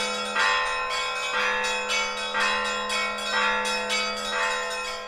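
Church bells ringing a peal: bells struck in a repeating pattern about twice a second over a sustained low hum, slowly fading.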